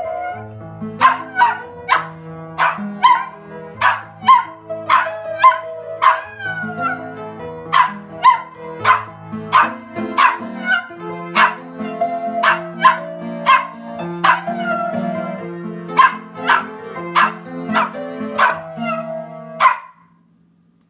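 Maltipoo howling along to an upright piano, its voice wavering and gliding in pitch over the piano's notes. The piano stops shortly before the end.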